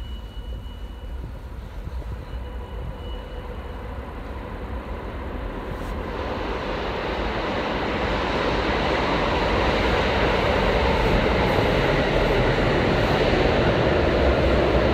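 Subway train rumbling into the station, growing steadily louder from about six seconds in.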